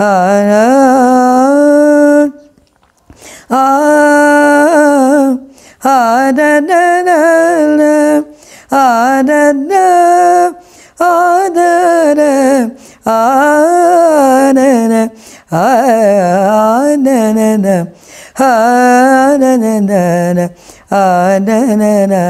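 An elderly woman singing unaccompanied, a Carnatic-style alapana on open vowel syllables ('aa-na-na'). Her long sustained phrases bend and glide in pitch, with short breath pauses every couple of seconds.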